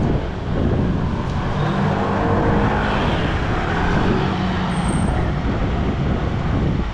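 Busy street traffic, with motorcycle and car engines running close by and a steady rumble.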